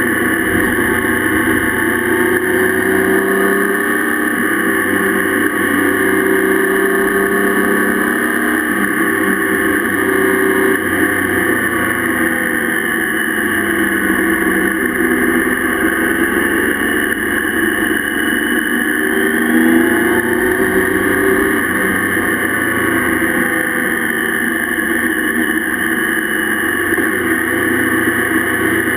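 Motorcycle engine running under way, its pitch rising and falling with the throttle, under a steady rush of wind and the hiss of tyres on a wet road.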